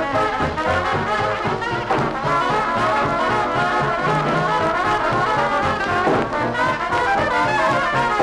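A 1945 New Orleans-style jazz band recording played from a 78 rpm record: cornet, trombone and soprano saxophone playing together over piano, string bass and drums.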